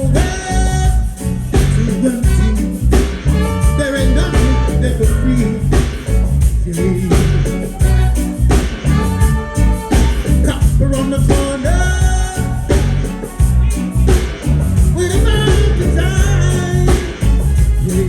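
Live reggae band playing, with singing over a strong bass line and a steady drum beat.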